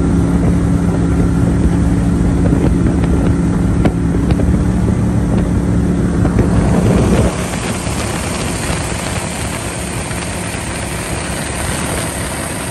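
Boat motor running with the jon boat under way, its steady drone mixed with wind and water rush on the microphone. About seven seconds in the engine's tone drops away and mostly wind and water noise remains.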